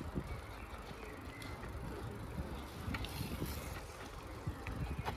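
Bicycle rolling along a paved park path: steady tyre and wind rumble with a few light clicks and rattles.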